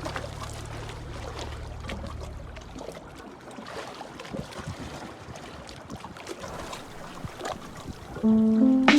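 River water lapping and trickling, with scattered small splashes. A low musical drone fades out in the first few seconds, and new music notes begin near the end.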